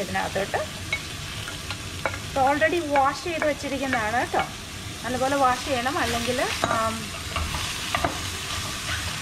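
A spatula stirring fresh spinach leaves into mushrooms frying in a non-stick pan, over a steady sizzle. From about two seconds in to about seven seconds in, a run of short pitched squeaks rises and falls as the leaves and spatula rub against the pan.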